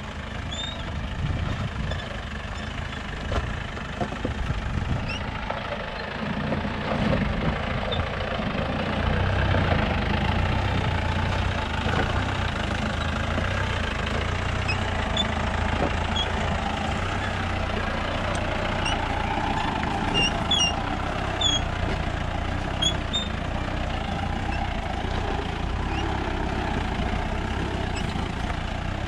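Mahindra Bolero 4x4's engine running low and steady as the vehicle crawls over a rocky dirt track, growing louder about a third of the way in as it comes closer.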